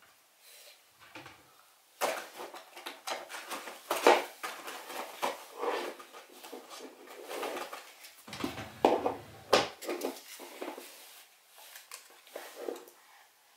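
Small plastic makeup items and packaging clicking, knocking and rattling as they are rummaged through and handled, a dense run of little clatters starting about two seconds in and dying down near the end.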